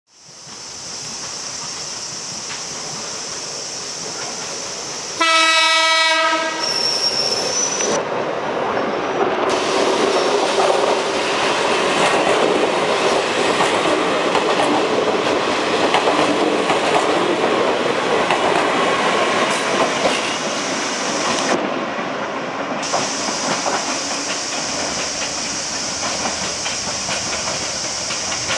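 Toyama Chiho Railway 16010-series 'Alps Express' electric train sounding one air-horn blast about five seconds in, lasting about a second, then passing through the station at speed, its wheels clattering over the rail joints for many seconds. Train running noise continues to the end.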